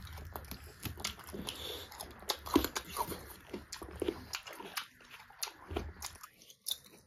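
Close-miked eating sounds of people chewing pork and mushroom curry with rice by hand: irregular wet chewing and mouth clicks, the loudest about two and a half seconds in.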